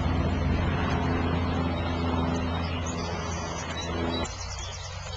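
A steady low engine hum that cuts off suddenly about four seconds in, with birds chirping near the end.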